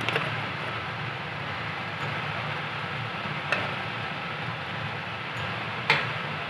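Induction cooktop heating a non-stick pan of oil, giving a steady hum and hiss. Three short, sharp clicks come through: one just after the start, one about halfway, and one near the end.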